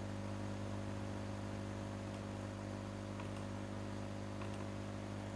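Steady electrical hum with a constant hiss from the recording setup, and a few faint clicks.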